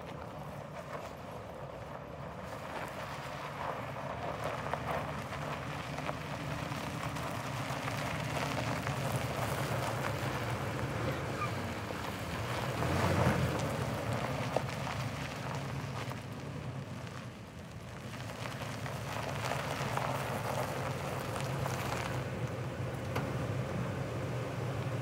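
2005 Ford F250 4x4 pickup running as it drives up and pulls in close, its steady low engine note growing louder toward the middle, dipping briefly about three quarters of the way through, then rising again.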